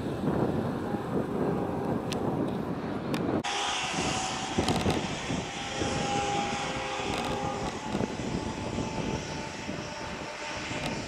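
Steady low rumble of engines. About three seconds in the sound changes abruptly, and the drone of approaching diesel freight locomotives continues, with a faint steady whine over it.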